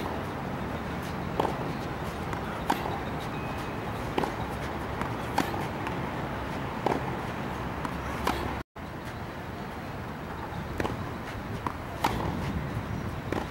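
Tennis racket striking the ball in a rally, a sharp pop about every second and a half, over a steady background noise. The sound drops out completely for an instant about two-thirds through.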